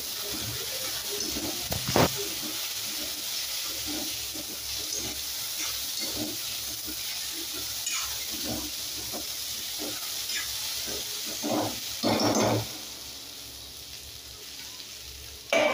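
Okra and potato pieces sizzling in oil in a steel kadhai while a metal spatula stirs and scrapes them. A sharp knock of the spatula on the pan comes about two seconds in, and a few louder knocks and scrapes about three quarters of the way through.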